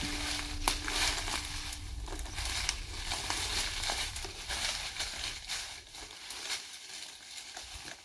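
Footsteps crunching and rustling through dry leaf litter and brush, in an irregular run of crackly strokes.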